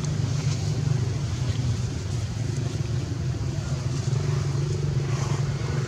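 A motor running steadily with a low, even drone.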